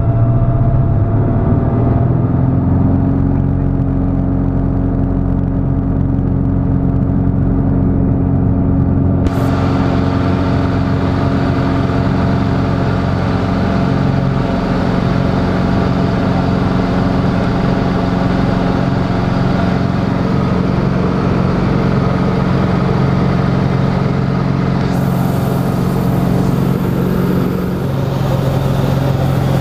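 Grob G115E Tutor's four-cylinder Lycoming piston engine and propeller heard from inside the cockpit, rising in pitch over the first couple of seconds as power comes up for the takeoff run, then holding a loud, steady drone. The tone shifts slightly near the end.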